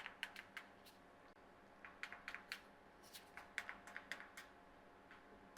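Faint small plastic clicks from a remote control's buttons being pressed over and over, in three quick runs of several presses each; the remote is not working the LED ceiling light.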